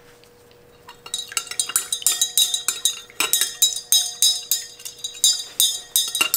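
A utensil stirring liquid in a container, clinking rapidly against its sides from about a second in: lab colorant being mixed into a body spray base.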